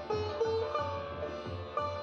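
Instrumental background music: a plucked string melody with sliding notes over a steady low beat.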